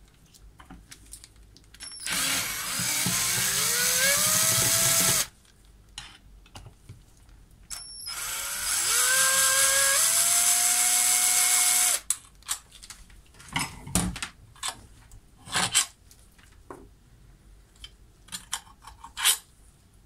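Cordless drill/driver unscrewing the long through-bolts of a washing machine motor's housing: two runs of a few seconds each, the motor whine rising in pitch as the trigger is squeezed and then holding steady. Short clicks and knocks follow as the loosened bolts are handled.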